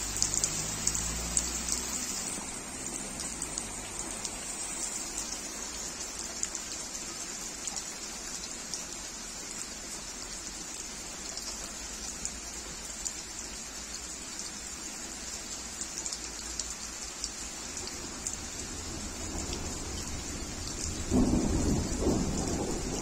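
Heavy rain falling steadily, with many small drops splashing on pooled water, leaves and wet paving. About 21 seconds in, thunder rumbles in suddenly and loudly.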